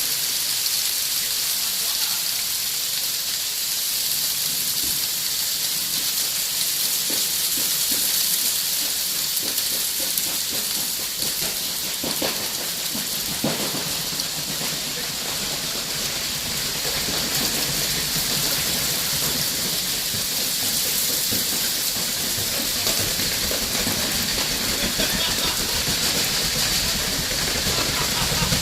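Heavy rain falling steadily, a dense even hiss, with a couple of brief knocks about halfway through.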